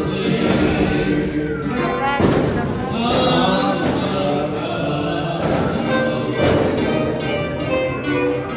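Live serenade music with plucked string instruments and voices, with two sharp thumps in the middle.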